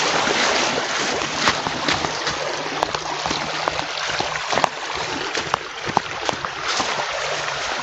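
Irrigation water rushing and splashing steadily through a just-opened gate in a concrete watercourse, flooding into the field.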